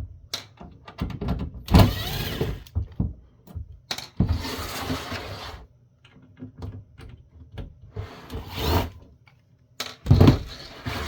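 Disassembly of a heavy metal electronics chassis: short whirring bursts of a cordless drill/driver backing out screws, mixed with clicks and metal handling and scraping noises. The bursts come in irregular spurts of half a second to a second.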